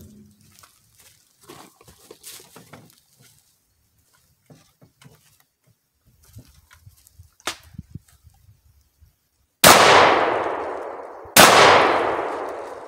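Two loud gunshots about a second and a half apart near the end, each trailing off in a long echoing decay, from a cowboy action shooting stage. Before them, light clicks and clatter of gun handling.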